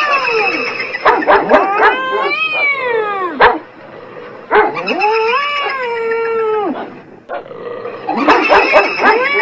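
A dog and a cat calling back and forth in long, wavering howls and yowls that rise and fall in pitch, with short sharp yelps between them. There are about three long calls, with a cluster of yelps about a second in.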